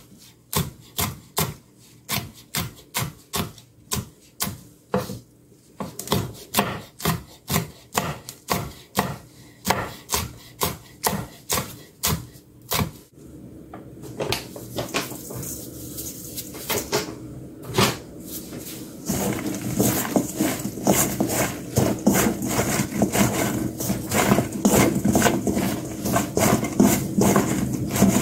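Chef's knife chopping green pepper on a wooden cutting board in steady strokes, about two to three a second, for roughly the first half. After a short quieter stretch, a gloved hand tosses salted eggplant slices in a stainless steel bowl, making a dense rustling clatter.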